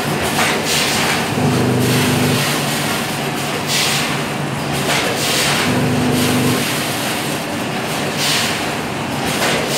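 Automatic pouch packing machine with a 10-head multi-head weigher running: a steady loud mechanical din. A low hum about a second long comes back roughly every four seconds, one cycle for each pouch, with short hissing surges in between.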